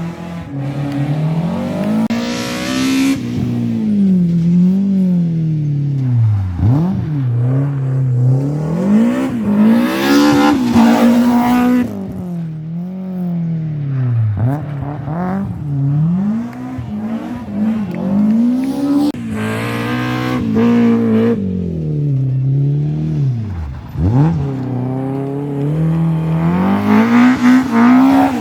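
Rally car engines revving hard, the pitch climbing and falling over and over as the cars change gear and lift off. Loud peaks come about every eight or nine seconds as cars pass close by.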